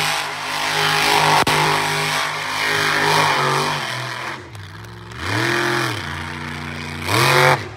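Monster truck engine held at high revs, then dropping off, then blipped twice in short revs that each rise and fall in pitch.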